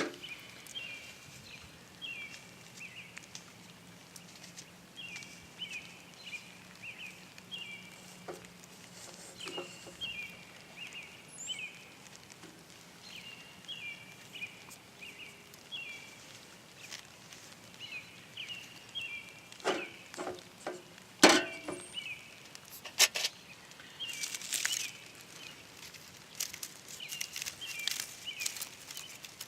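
Outdoor ambience of short, high chirps repeating about once a second, with a few sharp knocks about twenty seconds in and light crackling near the end.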